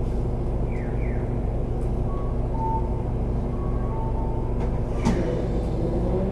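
Isuzu Erga Hybrid city bus running, its drivetrain giving a steady low hum heard from inside the cabin, with a few short high beeps and squeals and one sharp sudden sound about five seconds in.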